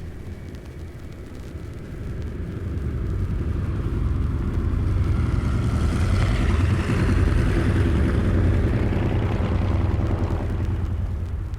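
A motor vehicle's engine running with a low rumble, growing louder over the first several seconds, loudest about six to eight seconds in, then easing off, as if approaching and passing.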